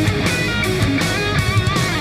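Rock background music led by electric guitar, its held notes bent and wavering with vibrato over a steady beat.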